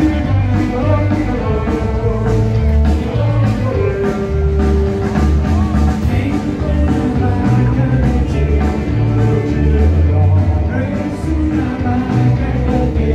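Rock band playing: a singer over guitar, a moving bass line and drums.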